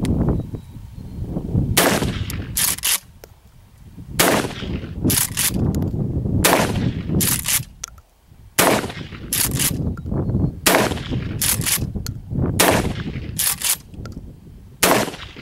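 A Remington 870 12-gauge pump-action shotgun fires about seven shots, roughly two seconds apart. Each shot is followed by two quick clacks as the pump is racked back and forward to chamber the next shell.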